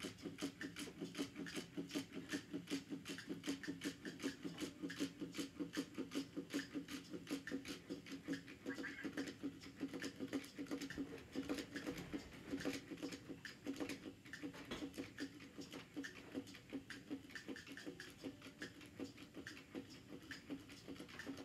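Battery-powered Chubby Puppies toy walking on the table, its small motor and waddling feet making a steady, rapid pattering of many small taps a second over a faint motor hum.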